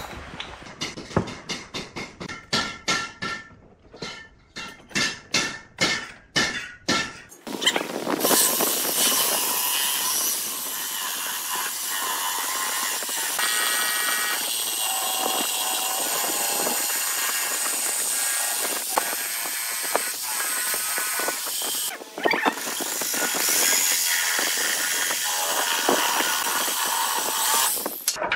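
Electric jigsaw cutting a curved line through a pine board, its blade running steadily from about seven seconds in, with a brief pause about 22 seconds in. Before that, a quick run of short separate strokes, about three a second.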